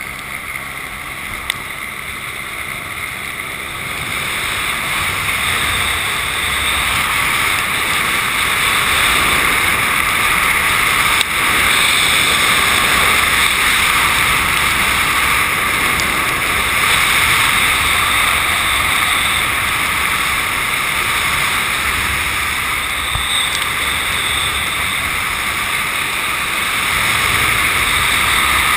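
Wind rushing over the camera microphone of a rescuer slung on a long line beneath a flying helicopter, mixed with the helicopter's engine and rotor noise from above. The rush builds over the first several seconds, then holds steady.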